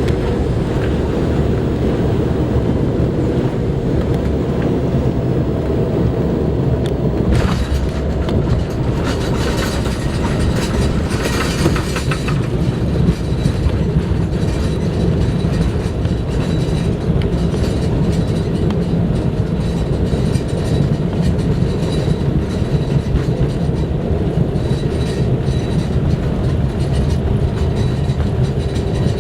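Cabin noise of an Embraer E190 airliner landing: a steady rumble of engines and rolling, with a sudden jolt about seven seconds in as the wheels touch down, then a few seconds of louder rushing and rattling as the jet brakes on the runway before settling back to a steady rumble.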